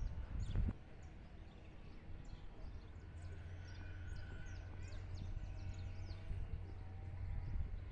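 Wind rumbling on the phone's microphone, with faint short high chirps scattered throughout and a brief thump about half a second in.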